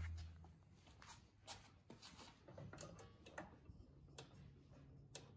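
Faint, scattered clicks and light taps of hands working a rubber auger belt off a two-stage snowblower's pulley, over near silence; a low hum dies away in the first half second.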